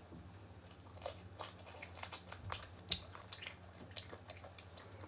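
Crisp, irregular crunching and mouth clicks of someone biting and chewing raw green mango, the loudest crunch about three seconds in.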